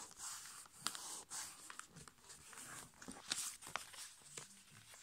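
A sheet of A5 copy paper being folded and creased by hand: faint, irregular rustling with short scrapes and crinkles as fingers press and slide along the folds.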